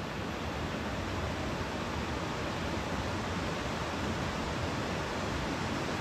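Steady rush of a small waterfall cascading over rocks into a stream pool.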